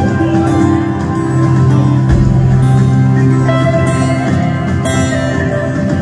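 Live rock band playing a slow instrumental passage on electric guitars and keyboards: long held chords over a sustained bass note.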